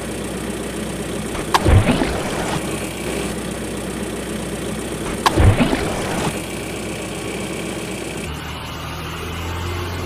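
Dubbed truck engine sound, idling steadily, with a louder burst about every four seconds as the effect repeats.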